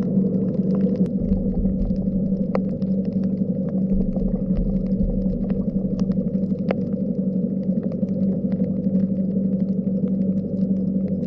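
Underwater sound picked up through a camera: a steady low mechanical hum, with scattered sharp clicks and a brief low rumble or two.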